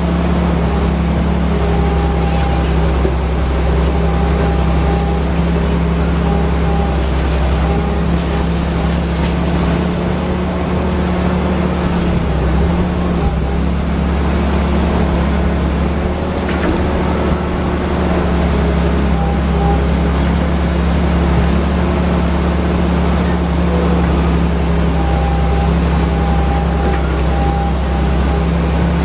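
Wheeled excavator's diesel engine running steadily at working speed while the machine digs and swings its bucket.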